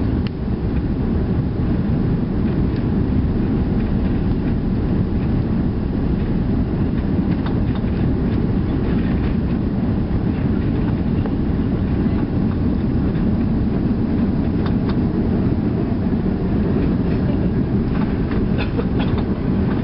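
Airliner cabin noise heard from inside during landing: a steady, loud low rumble of engines and rushing air as the plane touches down and rolls along the runway, with a few faint rattles near the end.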